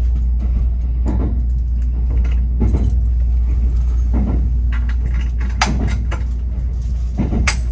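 Kintetsu Hinotori limited express train running, heard from inside the car: a steady low rumble with a knock from the wheels about every second and a half, and a couple of sharper clinks near the end.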